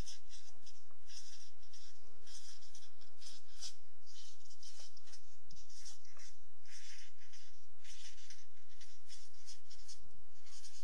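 Marker pen writing words by hand on a white surface: a quick run of short scratching strokes with brief pauses between them.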